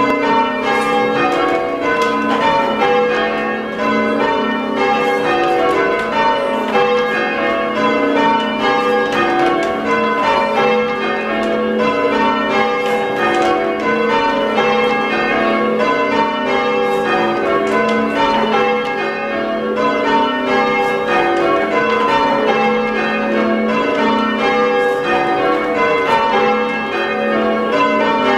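A ring of five church bells, tenor 11 cwt 1 qr 4 lb in G sharp, being rung full-circle by hand ropes in change ringing. The bells strike one after another in quick succession without a break, each note ringing on under the next.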